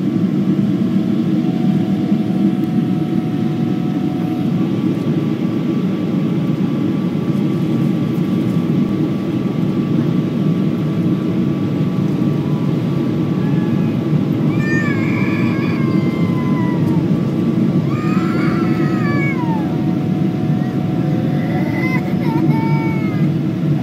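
Steady low rush of a jet airliner during its landing approach, with a few faint steady tones. In the second half, several short high-pitched wavering cries, like meows or a small child's whimpers, come over it.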